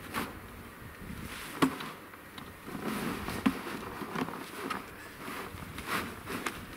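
Large plastic snow scoop being jabbed down into packed roof snow, crunching and scraping. Two sharp plastic knocks stand out, one about a second and a half in and another about three and a half seconds in.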